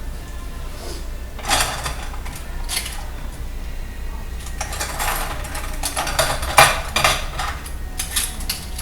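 Dishes and cutlery clinking and clattering as they are handled and washed by hand, in short bursts that grow busier in the second half.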